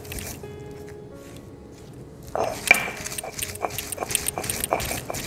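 Stone roller (nora) being pushed back and forth over a stone grinding slab (shil), grinding fried gourd leaves into a paste: rhythmic scraping and knocking strokes, a few a second. The strokes pause for about two seconds soon after the start, then resume with a sharp knock.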